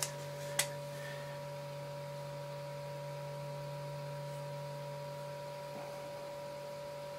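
Steady electrical hum made of several fixed tones, with two sharp clicks about half a second apart near the start.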